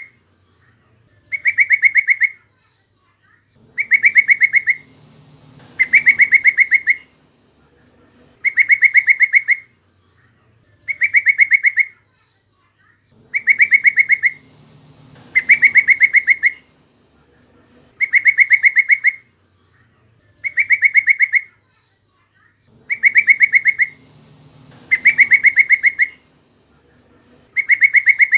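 Yellow-vented bulbul (trucukan) calls: short phrases of rapid, chattering high notes, each about a second long, repeated every two seconds or so in a looped recording.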